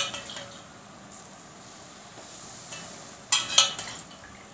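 Warm oil poured from a steel ladle sizzling as it hits red chilli powder and other pickle spices in a steel bowl, frying the spices. A cluster of sharp crackles and clinks comes a little after three seconds in.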